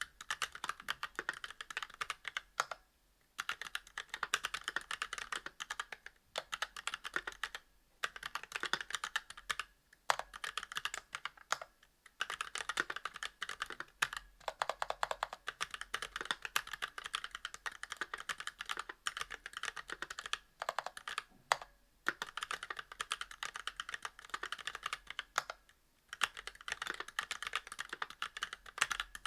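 Fast typing on a Monstargear Alu XO v2 mechanical keyboard with stock Kailh Box Black linear switches, brass plate and GMK keycaps: rapid clicky key strokes in bursts with brief pauses between them.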